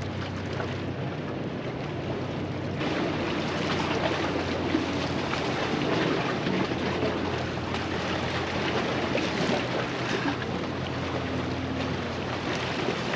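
Wind on the microphone and waves washing against the jetty rocks, a steady noise that gets a little louder about three seconds in, with the low steady hum of a boat motor out on the pass underneath.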